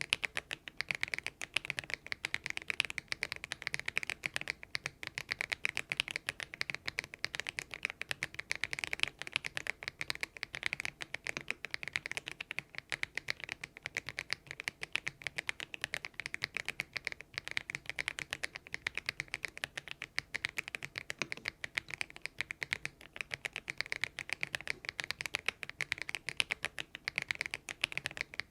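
Continuous typing on a Thinkway TV108 mechanical keyboard fitted with hand-lubricated Kailh Box Aurora Ice Cream switches, making rapid, dense keystroke clicks.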